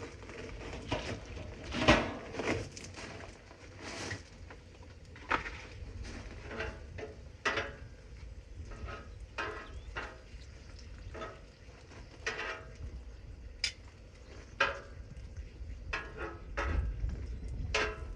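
Metal utensil scraping and clanking on the steel top of a Blackstone griddle as fried potatoes are scooped off onto a plate: irregular scrapes and clinks, a few seconds apart, some ringing briefly.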